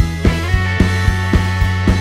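Background rock music with a steady beat, held guitar or synth notes over a deep bass.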